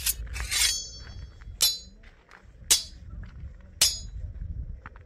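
Sound effects of a subscribe-button animation: a shimmering chime, then three sharp clicks about a second apart, over a low rumble.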